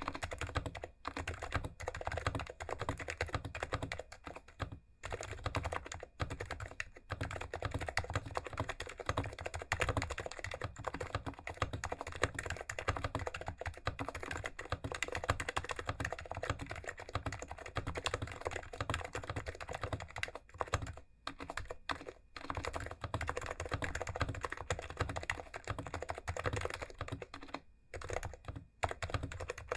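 Continuous fast typing on a PFU/Fujitsu HHKB Classic keyboard with Topre electro-capacitive switches, lubed sliders and dampening rings, and PBT keycaps. The keystrokes come as a dense run of soft clicks with brief pauses.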